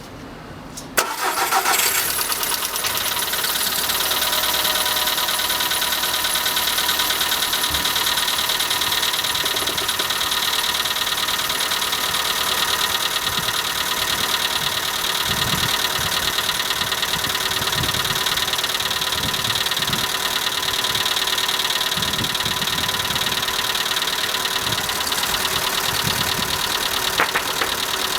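Skoda Fabia's 1.4-litre 16-valve four-cylinder petrol engine starting about a second in, then idling steadily with a rapid ticking clatter from the hydraulic valve lifters. This is the lifter knock it makes when started in the morning, which has not gone away even after all sixteen lifters were replaced.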